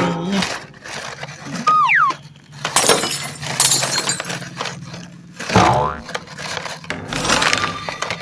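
Crashing and breaking sounds: a sharp impact, a short falling whistle about two seconds in, then bursts of shattering and crackling.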